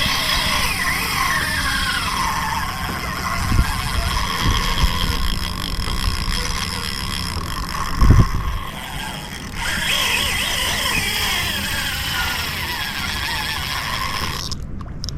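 Penn Slammer III 6500HS spinning reel grinding and squealing under load while a shark is fought, the sound of its damaged drive and pinion gears. A few dull thumps come through, the loudest about eight seconds in.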